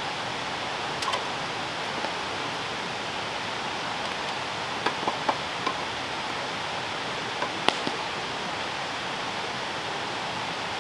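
A steady, even hiss of background noise with a handful of light taps of a chef's knife on a plastic cutting board scattered through it.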